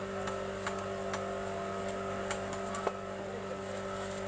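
Pangas fish being sliced on an upright boti blade, giving scattered sharp clicks and crunches, the strongest a little before three seconds in, over a steady machine hum.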